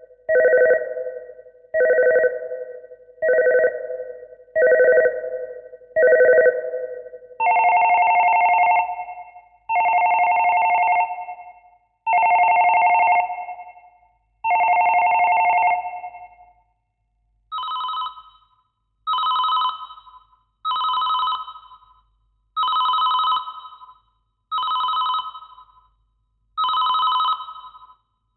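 Telephone ringing in three ring patterns one after another. It starts with short rings about every second and a half, then changes about seven seconds in to longer, higher rings about every two and a half seconds, then to shorter, higher-still rings.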